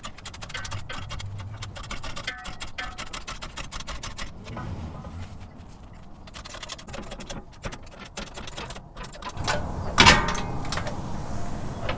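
Rapid metallic clicking and rattling as a heavy aftermarket skid plate is raised on a floor jack into position under the truck, with a louder metal clank near the end.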